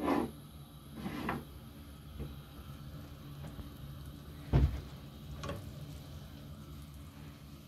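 A few knocks and bumps of kitchen handling, the loudest a dull thump about four and a half seconds in, over a faint low background hum.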